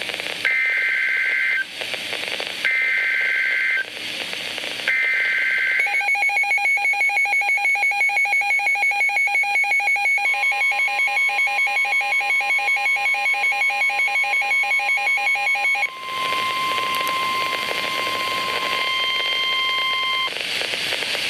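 NOAA Weather Radio emergency alert tones for a severe thunderstorm warning. First come three short bursts of the SAME digital header data tones, then a rapidly pulsing electronic alarm beeps for about ten seconds. Last comes the long, steady single-pitch weather radio warning tone over static, which cuts off about a second before the end.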